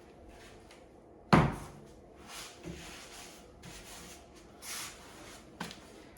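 Handling noises while a lock's metal strike plate is fitted to a wooden door frame. There is one sharp knock about a second in, then soft scraping and rustling, and a lighter click near the end.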